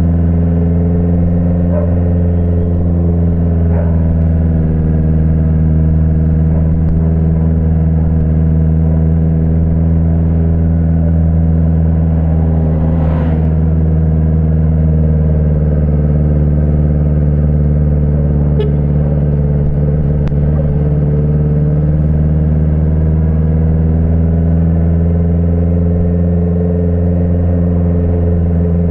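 Honda CBR650F's inline-four engine running, held at a steady engine speed the whole time.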